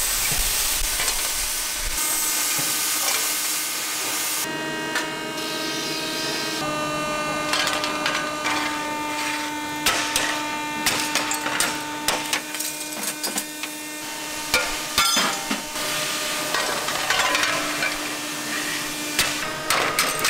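Steady hiss from an aluminium die-casting machine for the first few seconds, then a factory hum. From about halfway, sharp metal knocks and clatter come as the gates and runners are broken off a cast aluminium pan body with a metal bar.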